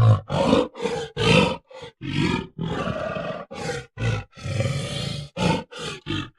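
Gorilla vocalizing in a rapid string of short, loud grunts and roars, with a few longer roars of nearly a second each in the middle of the run.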